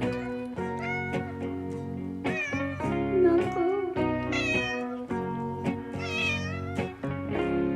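A cat meowing several times, with a longer wavering meow about six seconds in, over steady background music.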